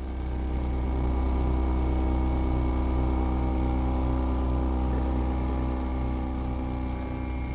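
Dark ambient synthesizer music: a deep sustained drone under several held steady tones, with a regular low pulse throbbing beneath them.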